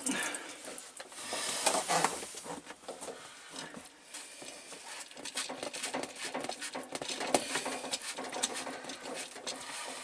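A run of small plastic scrapes and clicks as a hand grips and works the slip nut on a black plastic sink drain trap.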